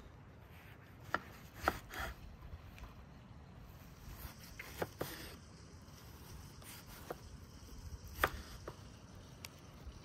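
Kitchen knife slicing an orange into wedges on a wooden cutting board, the blade striking the board in a series of sharp, irregular taps.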